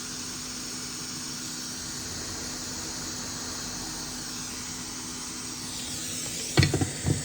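Hot air rework station blowing a steady hiss while solder is reflowed on a replacement HDMI port. Near the end two sharp knocks follow each other about half a second apart.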